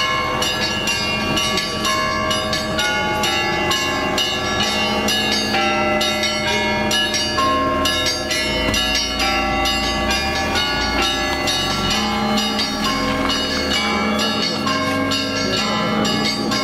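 Orthodox church bells ringing continuously, many bells struck in quick succession so that their tones overlap.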